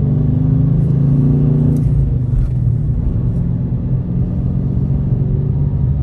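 Car cabin while driving: a steady low rumble of engine and road noise.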